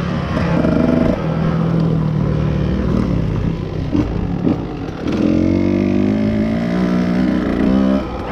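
Small pit bike engine running under throttle, its pitch rising as it accelerates, easing off in the middle with a few knocks, then climbing steadily again from about five seconds in until the throttle is shut near the end.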